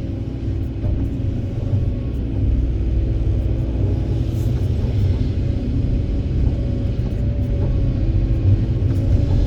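Heavy diesel engine of an excavator working with a dump truck, a steady low rumble with a constant hum above it, growing a little louder a few seconds in.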